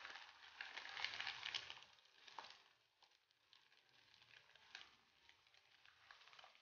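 Faint sizzling and crackling of diced ham, onions and garlic frying in butter in a pan as drained sliced mushrooms are tipped in, strongest in the first two seconds, then a few soft clicks.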